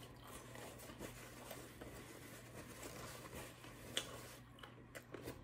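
Faint chewing of pizza with the mouth closed, small wet mouth clicks over a low steady room hum, and one sharper click about four seconds in.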